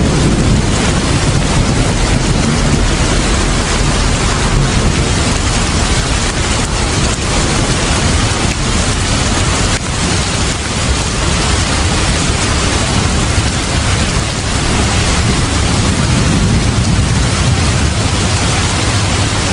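Steady heavy rain, a continuous even hiss.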